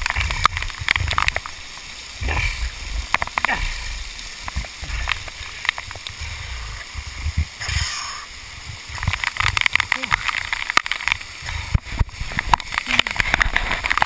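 Waterfall spray and falling water splashing around and onto a body-worn camera, with rumbling buffets on the microphone and many short knocks and scrapes as the rappeller moves over wet rock on the rope.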